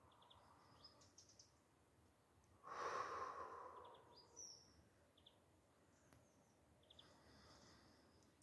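A man's long, slow exhale close to the microphone, starting about three seconds in and fading away. Faint, short, high bird chirps come now and then.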